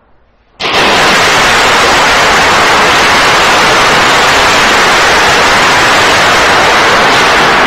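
Sudden, extremely loud static-like hiss that cuts in about half a second in and holds at a flat, clipped level.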